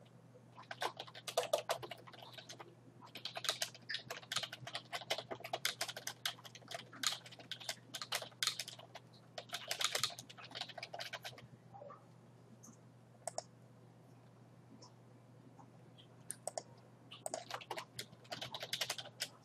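Computer keyboard typing in quick runs of keystrokes for about ten seconds, then a pause of several seconds with only a few stray key clicks, then another short run of typing near the end.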